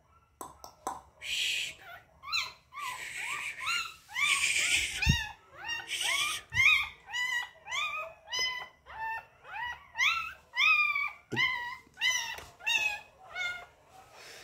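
Two-week-old puppy whining in a rapid series of short cries that rise in pitch, about two a second. Bursts of hissing noise come between the cries in the first few seconds.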